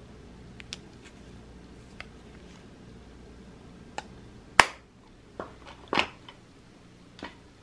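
Small clicks and taps of vintage powder compacts being handled: metal-framed cases clicking shut and knocking together as they are set down. The sharpest, loudest click comes about halfway through, with a few lighter ticks scattered around it.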